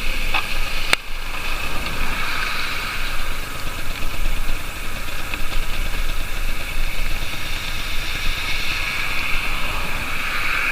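Aprilia SX 50's 50cc two-stroke single-cylinder engine running steadily, with a sharp click about a second in.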